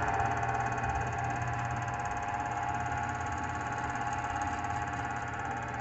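Wood lathe's motor running steadily at about 778 RPM, spinning a bowl blank with no tool on the wood; an even hum.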